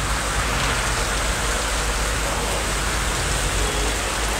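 Heavy rain falling on a waterlogged street, a steady even hiss.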